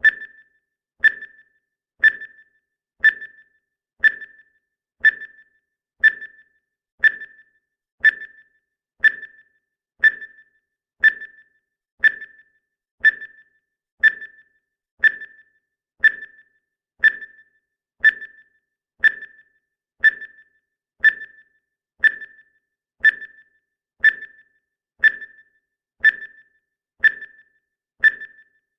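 Countdown timer's clock-tick sound effect, one short, high-pitched tick each second with a brief ring, perfectly regular.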